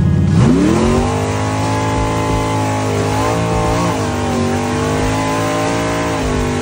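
Carbureted 5.3-litre V8 of an old bracket race car, heard from inside the cabin while driving. It revs up over the first second, then holds a steady engine note with a couple of brief dips in pitch a few seconds in.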